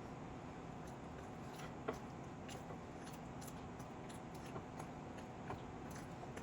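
Quiet eating sounds from chicken biryani being eaten: faint chewing and a few scattered light clicks, the sharpest about two seconds in, over a steady low background hum.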